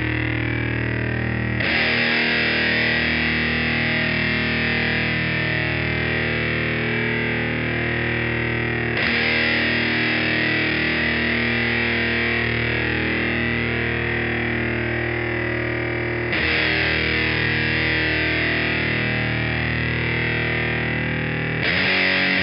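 Electric guitar through heavy distortion pedals, playing long sustained chords. A new chord is struck about every seven seconds, four times in all, the last near the end.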